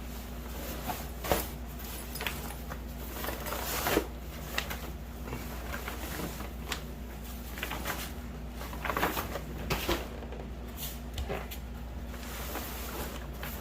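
Scattered knocks, clicks and rustles of a grow tent's frame and fabric being handled as the assembled frame is pushed into the tent, with a sharp knock about a second in and another about four seconds in, over a steady low hum.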